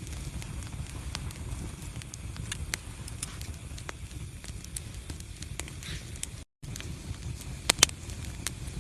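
Wood fire burning in a fireplace, crackling with scattered sharp pops over a low rumble. The sound cuts out completely for a split second about two-thirds of the way through, and two louder pops follow near the end.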